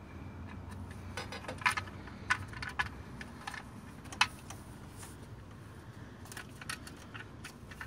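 Irregular light plastic clicks and taps as a new distributor cap is handled and brought into position over the rotor, a few sharper knocks among them about two and four seconds in.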